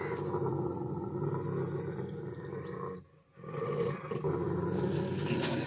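Large dog growling low and continuously, with one short break just after three seconds in.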